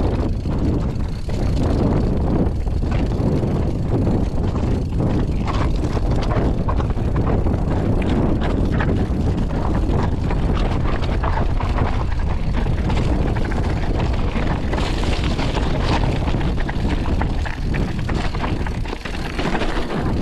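Mountain bike riding down a rough trail: steady wind rush on the camera microphone, with the bike clattering and knocking over bumps throughout.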